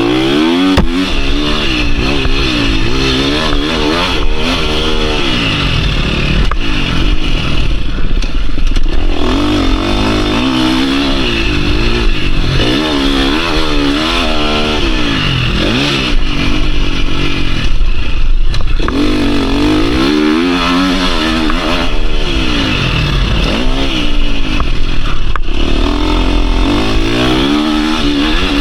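2022 KTM 350 SX-F four-stroke single-cylinder motocross engine under hard riding, revving up and dropping back again and again as the throttle is opened and closed through the gears. A few sharp knocks and clatter cut in along the way.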